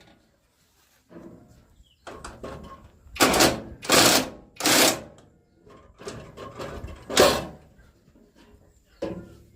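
Metal parts of an old rice milling machine being handled and fitted back together: a run of irregular clattering and scraping strokes, the loudest four coming in the middle few seconds.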